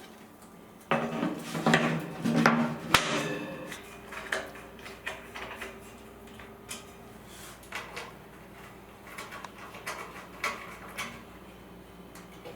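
Steel frame parts and bolts clanking and clattering as they are handled, with one sharp metallic knock about three seconds in, then scattered light clicks and taps.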